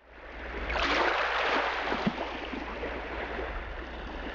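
Small waves washing onto a pebble beach over a steady low rumble. The wash swells loudest about a second in, then settles to a steady hiss.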